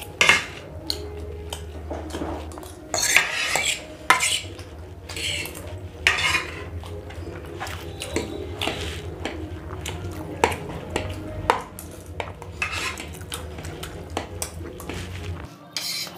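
Metal fork and spoon scraping and clinking against plates while macaroni pasta is eaten, in irregular sharp clicks and short scrapes.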